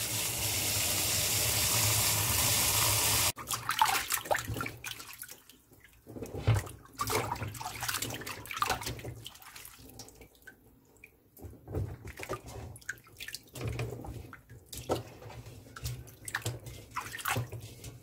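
Water running steadily for about three seconds, cutting off suddenly, then hands swishing and splashing blanched sweet potato stems about in a bowl of cold rinse water in irregular bursts.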